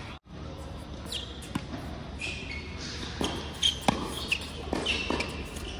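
Tennis rally on an indoor hard court: a series of sharp pops from racket strikes and ball bounces, with short high squeaks from players' shoes on the court surface.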